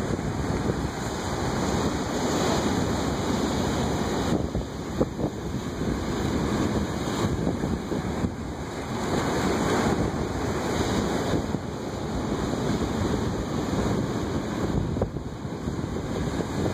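Ocean surf breaking over rocks and washing up the shore, swelling and easing with each wave. Wind buffets the microphone throughout.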